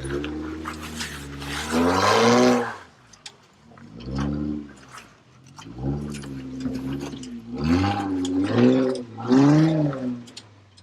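Jeep Wrangler JK Rubicon engine revving in repeated swells, rising and falling in pitch every second or two, as the throttle is worked to crawl the Jeep over rocks.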